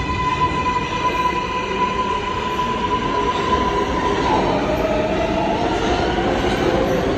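New York City Subway 7 train running along the platform: steady wheel-on-rail noise under a high, even whine. About four seconds in, the high whine gives way to a lower one that rises slowly.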